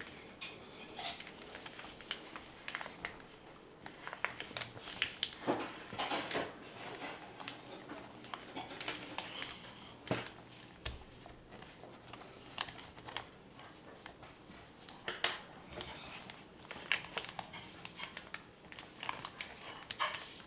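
Paper being folded and creased by hand: scattered rustling and crinkling of paper, with light taps and clicks on the table.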